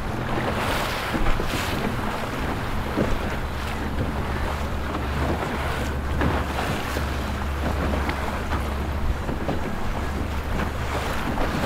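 Boat engines running with a steady low hum over the wash of water, with wind on the microphone.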